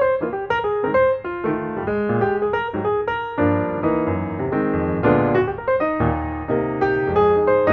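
Piano background music: a steady run of notes over chords at an even pace.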